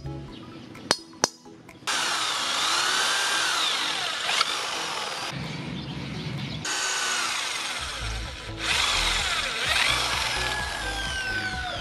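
Two hammer taps on a nail used as a punch to mark a steel flat bar. Then an electric hand drill bores through the flat bar, its motor pitch rising and falling and stopping briefly twice.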